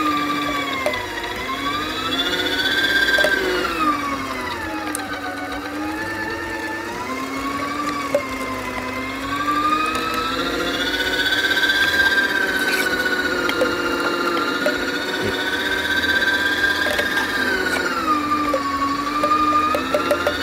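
Мастерица (Masteritsa) kitchen machine's electric meat-grinder motor running under load while grinding meat: a steady whine whose pitch sags several times and recovers. The motor is straining a little under the meat but copes.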